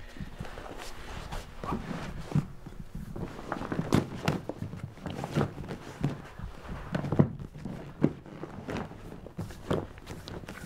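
Hypalon rubber hull skin of a folding kayak being folded over and pressed flat by hand: irregular soft thuds and rubbing of heavy rubber and fabric.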